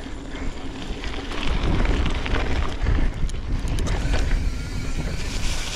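YT Izzo trail mountain bike ridden fast over a dirt trail: a rumble of tyres and suspension over the ground, with scattered rattles and clicks from the bike, loudest in the middle stretch. Wind buffets the microphone throughout.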